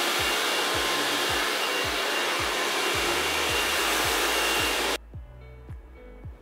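Handheld hair dryer running on high, a loud, even rush of air with a faint high whine, cutting off abruptly about five seconds in. Background music with a steady low beat plays under it and carries on after.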